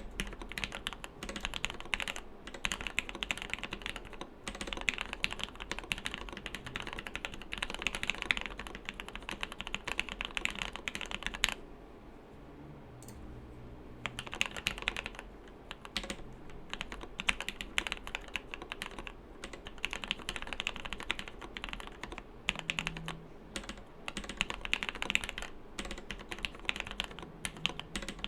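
Steady typing on a Samice custom mechanical keyboard with an aluminium bottom and top-mounted aluminium plate, fitted with lubed Gateron Milky Yellow linear switches: a dense run of key clacks, which the builder finds a bit too muted. The typing stops for about two seconds a little before halfway, then resumes.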